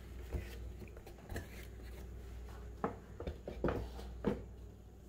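Several faint knocks and clicks of a Weber metal poultry roaster pan being handled, scattered through, over a low steady hum.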